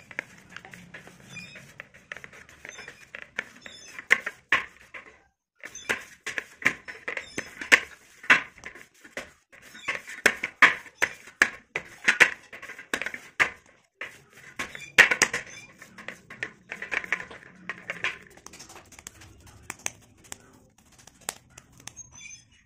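Hands kneading a damp clay dough against a steel plate: irregular sticky squishes and pats, with a short pause about five seconds in.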